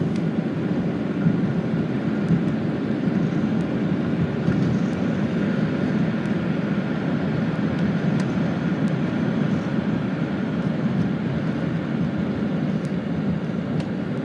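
Steady road and engine noise of a moving car, heard from inside the cabin: an even, low rumble.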